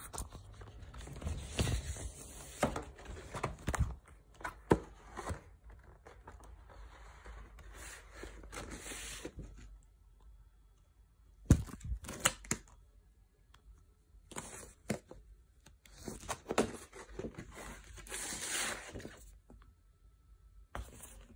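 Paper and card inserts of a vinyl LP package being handled: irregular rustling and crinkling, with a few sharp knocks and scrapes.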